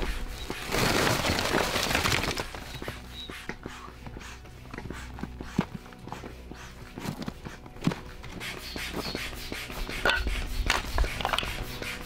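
Split firewood handled on dry ground: a rush of rustling and clattering about a second in as logs tumble from a sack, then scattered knocks of wood on wood as the logs are set down and stacked one by one.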